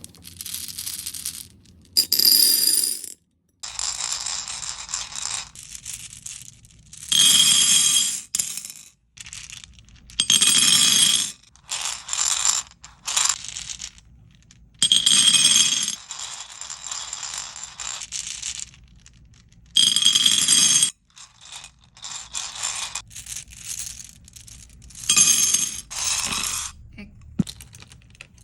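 Small beads rattling and clinking in a string of bursts a second or two long, with short pauses between them.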